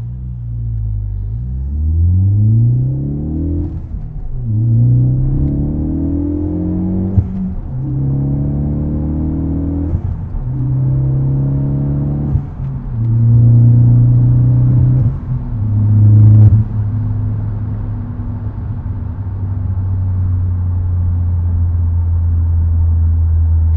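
Ford Focus ST with an aftermarket cat-back exhaust, heard from inside the cabin while accelerating hard from a standstill. The engine note climbs and then drops back at each of several upshifts. About two-thirds of the way through it settles into a steady drone at cruising speed.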